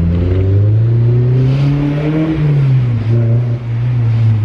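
Honda S2000's naturally aspirated four-cylinder engine accelerating through a new MagnaFlow dual-exit exhaust. The engine note climbs steadily for about two seconds, falls back about two and a half seconds in, then holds.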